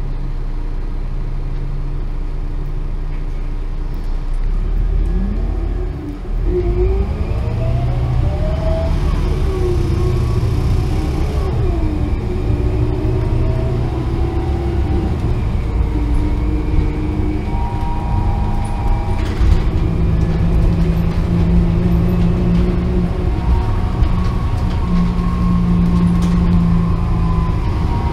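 A Mercedes-Benz O500LE bus's 12-litre turbocharged CNG inline-six idles steadily, then pulls away about six seconds in. The engine note rises and drops back at each upshift of the ZF six-speed automatic before settling into a steady cruise, heard from inside the passenger cabin.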